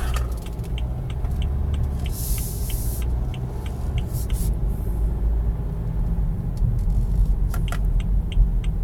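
Car engine idling steadily at a complete stop: the automatic start-stop has not shut it off. An even, light ticking about twice a second runs over it, and a short hiss comes about two seconds in.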